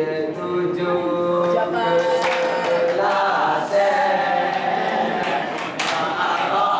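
Unaccompanied dikir barat singing: a lead singer sings a solo line into a microphone, and a chorus of boys' voices joins in about three seconds in. A couple of sharp claps cut through.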